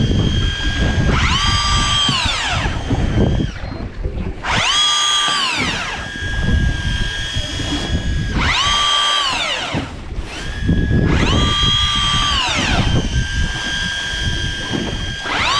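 Electric fishing reel winding in line in repeated bursts against a hooked fish: its motor whine rises, holds and falls away, each burst about one and a half to two seconds long, about every three to four seconds. A low rumble runs underneath.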